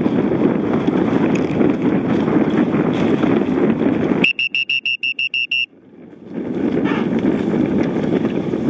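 Wind and water rushing over the microphone on a boat. A little over four seconds in this gives way to a rapid run of high electronic beeps, about five a second for about a second and a half, from a race start countdown timer. The rushing then comes back.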